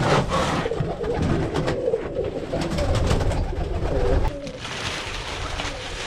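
Domestic pigeons cooing in a coop, with scrapes and knocks from shoveling mixed in. The cooing and the loudest part ease off about four seconds in.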